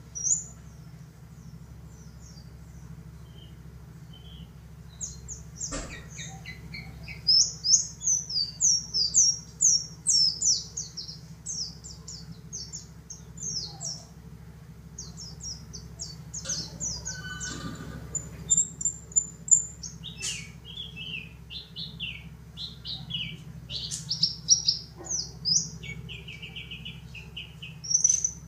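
A pleci dakun (yellow-breasted white-eye) singing: rapid, high chirping phrases in several bursts with short pauses between them, over a low steady hum.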